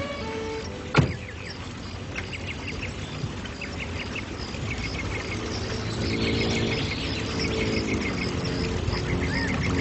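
A pickup truck door slams shut about a second in, the loudest sound. Ducks quack and small birds chirp through the rest.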